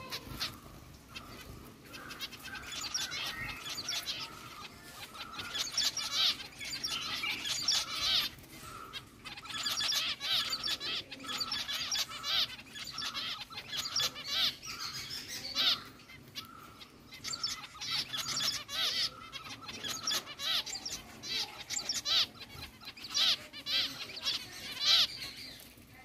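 A flock of zebra finches calling: many short, overlapping chirps and nasal beeps, coming in bursts that rise and fall.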